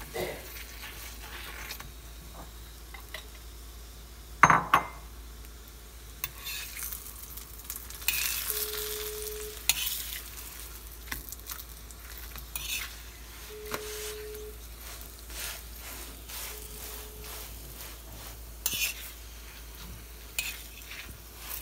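Chapatis frying in oil on a flat pan, a steady sizzle with a metal spoon scraping and tapping on the bread and pan. There is one loud knock about four and a half seconds in, and the sizzle swells for a couple of seconds about eight seconds in.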